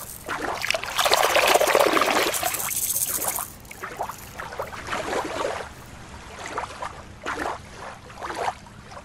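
Lake water splashing and lapping in the shallows. A louder stretch of splashing comes about a second in, then softer, irregular sloshes.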